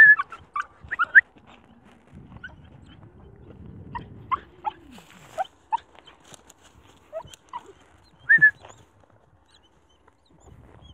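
Small white dog whimpering in short, high cries: a quick run of them in the first second or so, single cries scattered through the middle, and one louder cry near the end.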